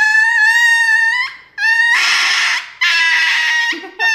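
Small white dog screaming in long, high-pitched wails while being given an injection: three drawn-out cries in a row with short breaths between, and a fourth starting near the end.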